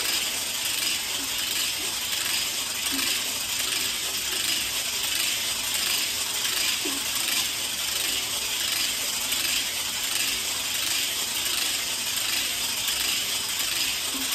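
Weighted smart hula hoop spinning around the waist: the snap-together plastic segments and the weight ball running round its inner track make a steady, fast rattling clatter.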